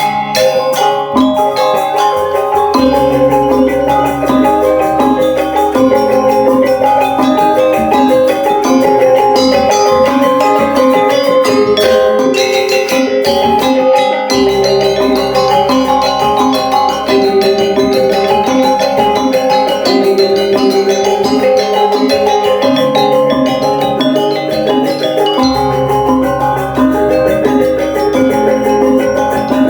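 Balinese gamelan playing dance music: bronze metallophones ringing out rapid repeated notes over deep gong tones that drop out and return several times.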